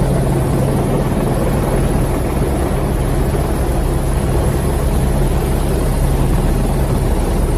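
Helicopter engine and rotor running steadily, heard from inside the cockpit: a loud, constant low hum under a dense rumble.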